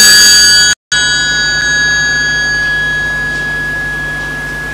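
A bell-like chime struck once, ringing out with a slow fade over several seconds; the recording drops out briefly just under a second in.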